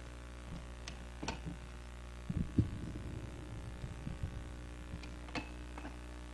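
Steady electrical hum from the stage sound system, with a few light clicks and a cluster of soft low thumps about two to four seconds in, the loudest near the middle: handling noise from instruments being picked up and set between songs.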